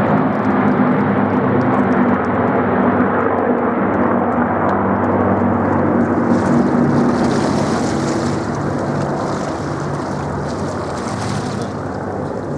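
Lancaster bomber's four Rolls-Royce Merlin piston engines droning steadily overhead, easing off slightly in the second half. A higher hiss comes in for a few seconds in the middle.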